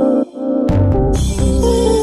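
Background music: a track with sustained pitched notes over a heavy bass beat.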